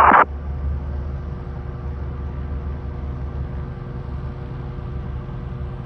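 A steady, low engine hum with a few faint steady tones above it. The tail end of a radio voice cuts off right at the start.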